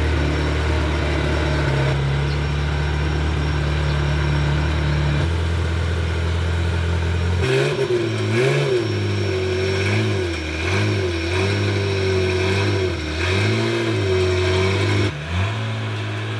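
Ferrari F355's 3.5-litre V8 idling steadily. About halfway through, the revs start rising and falling in short throttle blips as the car is driven slowly up a ramp.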